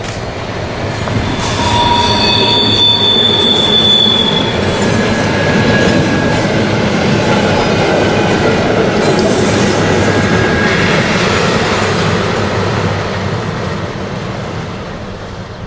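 Former ÖBB class 2143 diesel locomotive hauling a train of old passenger coaches past: its low engine running grows louder as it comes up and passes, with a brief high steady wheel squeal in the first few seconds, then the coaches rolling by and fading.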